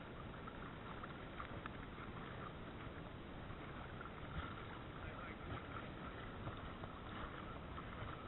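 Shallow seawater sloshing and lapping around a wading angler, with the faint whir and ticking of a spinning reel being cranked slowly to bring a lure back.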